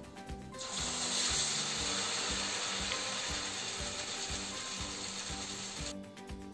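Corn-flour empanada sizzling as it deep-fries in hot oil. The sizzle starts about half a second in and cuts off sharply near the end, over background music with a steady beat.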